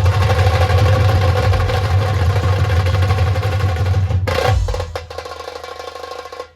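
Dhol tasha drumming: deep dhol drums and sharp tasha drums play a fast, even rhythm. About two-thirds of the way through, the deep drums drop out and the playing falls quieter, leaving light rapid strokes.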